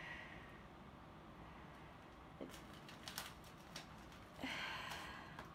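Faint handling of shipping packaging: a few small clicks and crinkles, then a short, louder rustle about four and a half seconds in.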